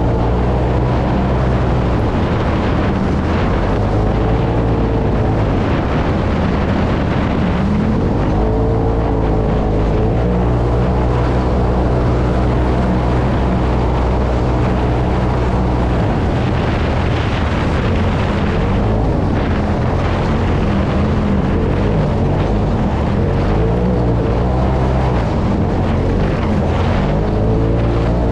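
UTV engine running hard while driving over a dirt desert track. Its pitch rises and falls several times as the throttle changes, with steady rumble from the tyres and chassis beneath.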